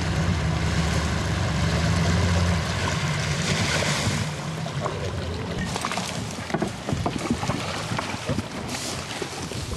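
Outboard motor of an inflatable boat running steadily over the rush of water, fading out after about three seconds. Then a run of scattered clicks and rustles.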